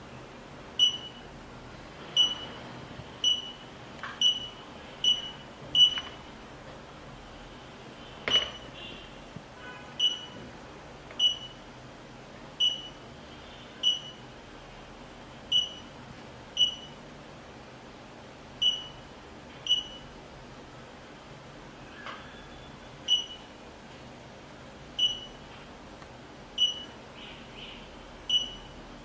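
Short high-pitched electronic beeps from a touch-screen alarm control panel, one every second or two at irregular intervals, as key presses on its screen are confirmed. A few faint taps fall among them.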